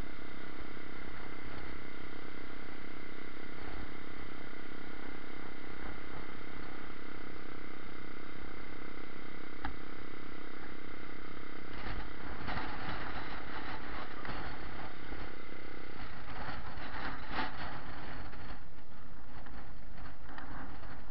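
A 125 cc pit bike's single-cylinder engine running steadily at idle. About twelve seconds in, a spell of knocks and rattles joins it, and the steady engine tone drops away a few seconds later.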